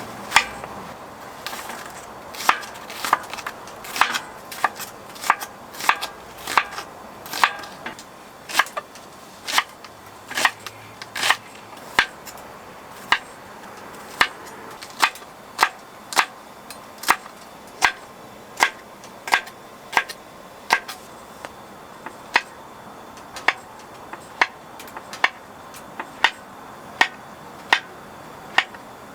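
Kitchen knife chopping on a cutting board in a steady rhythm of sharp cuts, about three every two seconds.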